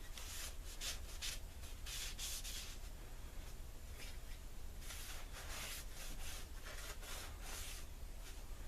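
Oil being wiped onto a draw knife's steel blade: a series of irregular rubbing strokes.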